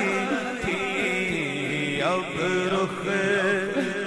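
Male naat singer singing an Urdu devotional naat into a microphone: a long, wavering sung line without clear words between verses.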